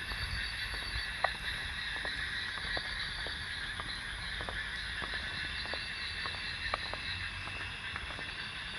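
Night chorus of crickets, a steady high trilling of several layered pitches, over a low rumble of wind on the microphone, with scattered faint clicks.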